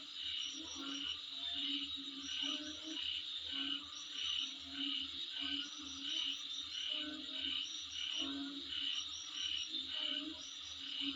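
Outdoor chorus of calling insects: a steady high drone with short chirps repeating about twice a second, mixed with lower croaking calls.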